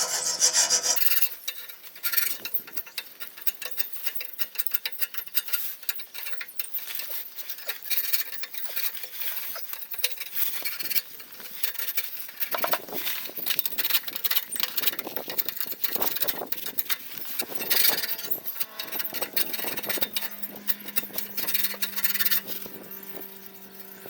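Hand file rasping in repeated, uneven strokes on a Toyota Celica's metal exhaust, cleaning it up before it is refitted.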